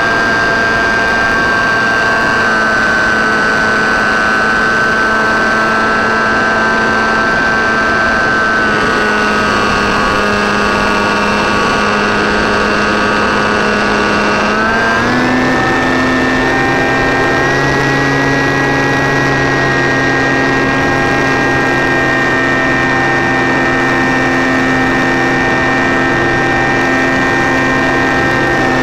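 RC model Cessna 337's motors and propellers heard from the plane's onboard camera: a steady droning whine that rises in pitch about halfway through as the motors speed up.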